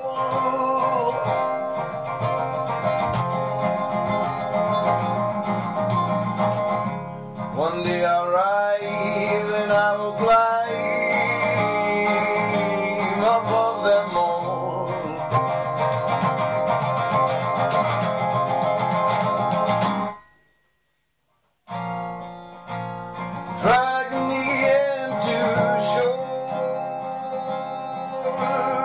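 Acoustic guitar strummed steadily under a man's singing voice. About two-thirds through, all sound cuts out for about a second and a half, then the guitar and voice come back.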